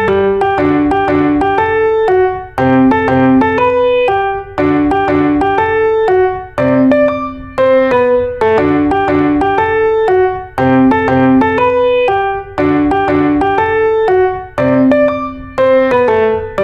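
Background piano music: a light melody of struck notes in short phrases that repeat about every two seconds.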